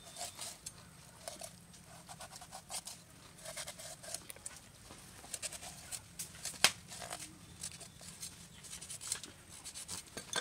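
Large knife scoring a raw red pomfret: an irregular run of short, crisp cuts and clicks as the blade slices through the skin and taps the wooden board, with one sharper knock a little past the middle.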